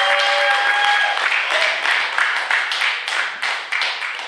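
Audience applauding, with a held shout of cheering in the first second; the clapping thins out and fades toward the end.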